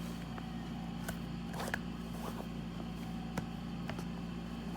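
A few sharp plastic clicks and handling sounds, from a smartphone being pressed into a protective case, over a steady low room hum.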